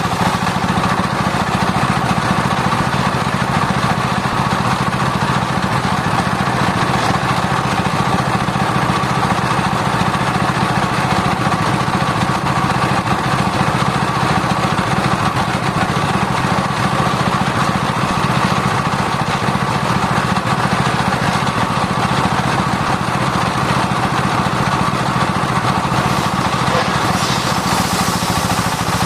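Circular-blade sawmill running with a steady mechanical drone.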